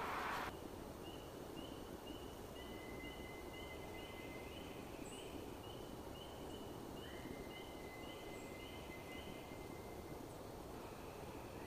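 Unexplained high whistling: a train of short, evenly spaced high notes, about two a second, runs for some eight seconds over a thin, steady high whistle that begins a couple of seconds in and breaks briefly before carrying on. A short rush of noise comes at the very start.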